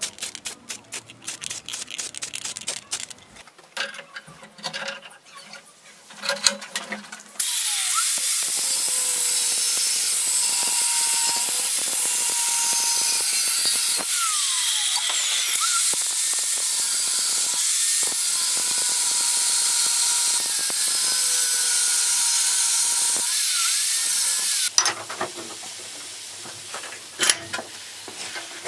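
Hand file strokes on a steel knife blank clamped in a vise. Then a power tool grinds the steel, running steadily for about seventeen seconds with its pitch wavering, and cuts off suddenly. Quieter filing strokes follow near the end.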